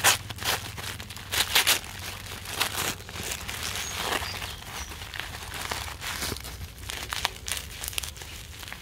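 Tissue paper and plastic bubble wrap crinkling and rustling as hands unwrap a wrapped candle. The crackles are irregular, loudest right at the start and again about a second and a half in.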